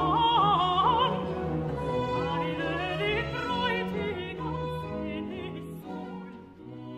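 Classical music: a high voice singing with wide vibrato over an orchestra, the music growing quieter and dying away toward the end.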